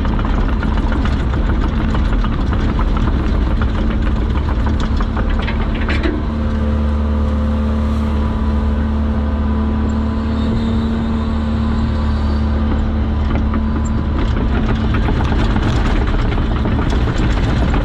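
Excavator's diesel engine running steadily under the seat, heard from inside the operator's cab as the machine digs and lifts a bucket of sod and dirt.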